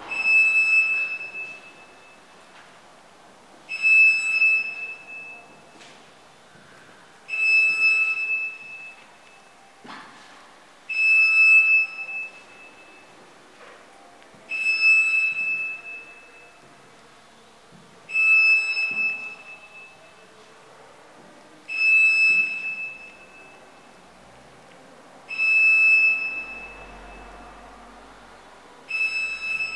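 A high-pitched tone sounding nine times at an even pace, each about a second and a half long and roughly three and a half seconds apart.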